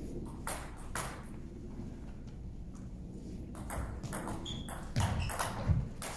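Table tennis ball clicking: a couple of single taps near the start, then a quick rally from about halfway through, the ball pinging off paddles and table several times a second. A few low thumps come near the end.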